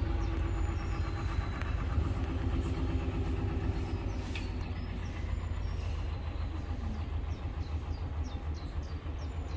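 Narrowboat engine running steadily under way, a low throb with no change in speed.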